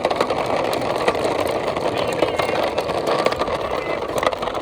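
Steel toy dump truck rolling fast over rough ground, its wheels rumbling and its metal body rattling with many small clicks. The rumble cuts off suddenly just after the end.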